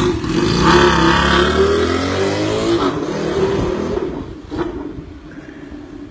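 Turbocharged Hunter Daytona motorcycle's engine accelerating away, its pitch climbing for the first three seconds or so, then fading with distance.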